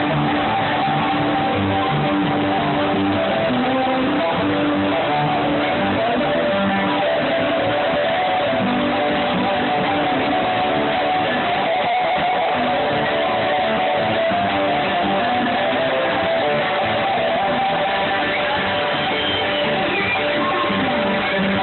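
Live bluegrass band playing an instrumental passage: strummed guitar under a sustained melody line that moves from note to note. The phone recording has its highs cut off.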